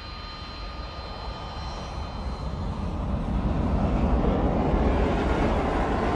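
Military jet aircraft taking off, a high engine whine giving way to a broad jet noise that grows louder from about three seconds in and holds near its peak.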